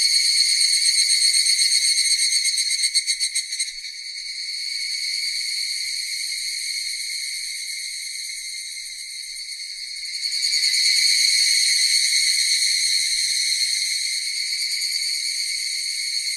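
Cicadas buzzing in a continuous high-pitched drone. It is loud at first, wavers and falls away about three and a half seconds in, then swells up again about ten seconds in.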